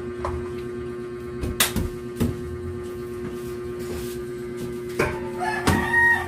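A few sharp knocks and clatters from a plastic 360 spin mop and its wringer bucket being handled, over a steady hum. A rooster crows near the end.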